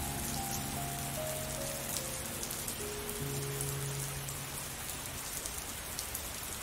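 Steady rain falling, with slow calm music underneath: a few notes stepping down early on over long low held tones.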